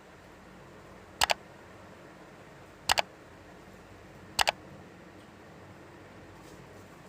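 Three sharp double clicks, about a second and a half apart, over a faint steady hiss.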